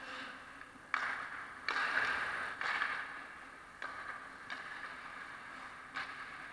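Hockey skates scraping and cutting on rink ice: about six sharp scrapes, each trailing off in a short hiss, the loudest about two seconds in.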